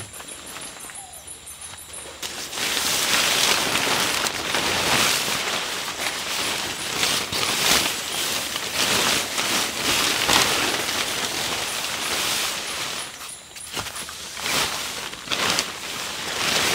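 Nylon tent rainfly rustling and swishing as it is shaken out and spread over a dome tent, in uneven surges that start about two seconds in. Crickets chirp before it.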